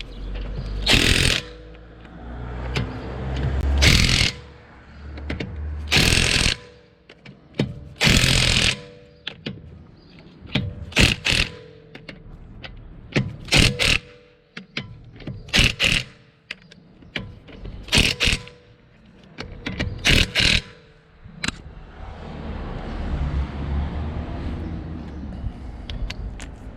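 Teccpo TDIW01P 18 V cordless impact driver hammering in repeated short bursts, about one every two seconds, the bursts growing shorter and quicker in the second half.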